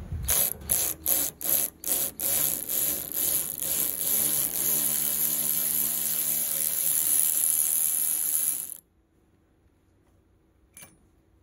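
Power wrench driving a gear puller's centre screw to draw an A/C compressor clutch pulley off its shaft. It starts as a string of short bursts, then runs steadily for about four seconds and cuts off suddenly.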